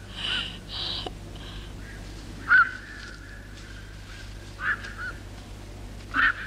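A bird calling in short squawks, repeated every couple of seconds, over a faint steady background hum.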